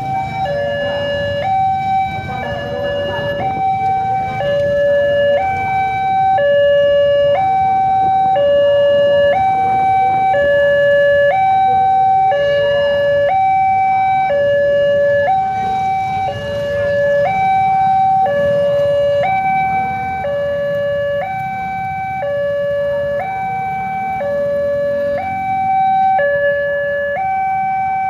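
Indonesian railway level-crossing warning alarm sounding: an electronic two-tone signal, high-pitched yet bassy, alternating a higher and a lower tone at a medium tempo of about one change a second, over the low rumble of road traffic.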